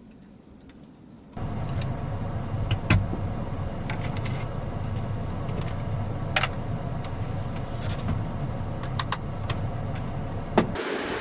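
A car running, heard as a steady low engine and road noise with scattered clicks and rattles, starting suddenly about a second and a half in.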